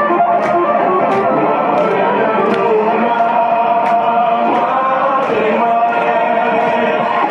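Loud music with guitar and singing over a steady beat.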